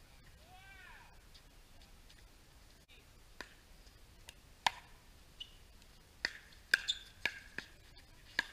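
Pickleball paddles striking a hollow plastic ball: sharp pops, a single one about halfway through for the serve, then a quick run of hits close together near the end as a volley exchange at the net. A faint high squeak comes about a second in.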